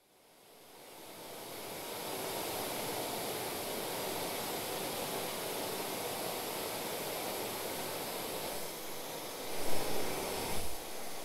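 A steady rushing hiss of noise fades in from silence over the first two seconds. A few louder, short low puffs break in near the end.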